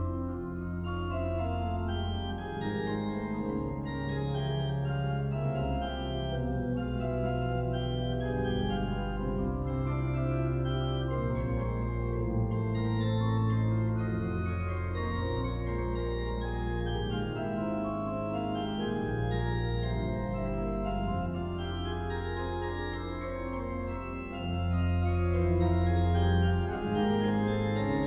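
Organ playing a passacaglia: sustained chords over a slow bass line of long held notes. It grows louder near the end.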